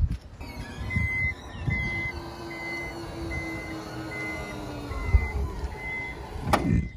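Power tailgate of a Toyota Fortuner closing. Its warning beeper sounds seven times, evenly spaced, over a steady motor hum, and the tailgate shuts with a thud as it latches near the end.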